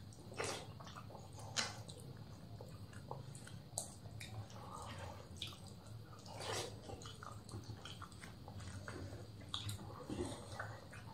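Close-miked eating sounds: mouth smacks and chewing of rice and mutton curry eaten by hand, with fingers squishing and mixing rice on banana leaves, as scattered soft clicks. A steady low hum runs underneath.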